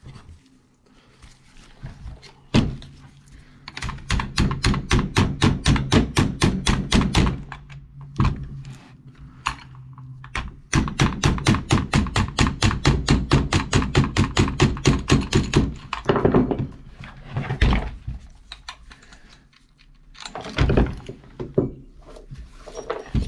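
Rapid hammer tapping to drive the wrist pin out of a Husqvarna 350 chainsaw piston. About six sharp metal taps a second come in two long runs, with a few separate knocks between and after.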